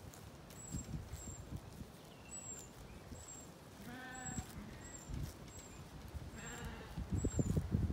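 Zwartbles sheep bleating: one call about four seconds in and a shorter one a couple of seconds later. A low buffeting rumble grows louder near the end.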